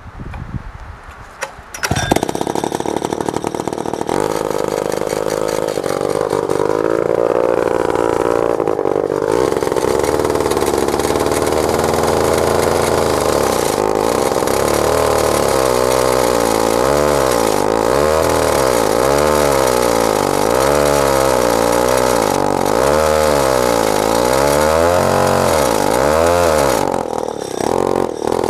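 Burns 106 two-stroke bow-bar chainsaw starting about two seconds in and running, fed from an external fuel source. In the second half its engine speed rises and falls about once a second, and it falls off near the end.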